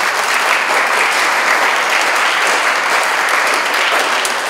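Audience applauding, many hands clapping at an even level.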